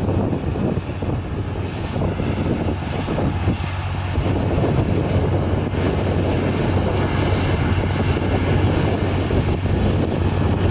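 Tornado multiple rocket launcher firing a salvo: a continuous rushing roar of rockets leaving the tubes, with a steady low hum underneath.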